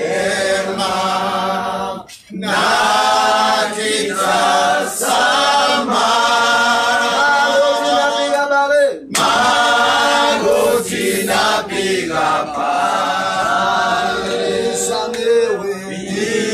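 A group of voices singing together unaccompanied, with two brief pauses between phrases, about two seconds in and again about nine seconds in.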